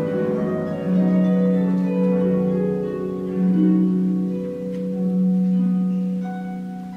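Concert harp played solo: low plucked notes ring on with their overtones, fresh notes struck about once a second, the sound dying away towards the end.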